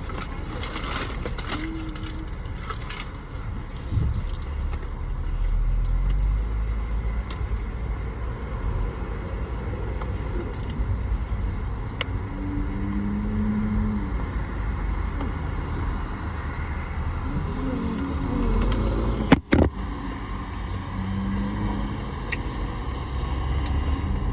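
Car idling, heard from inside the cabin: a steady low rumble with light clicks in the first few seconds and one sharp knock a little past the middle.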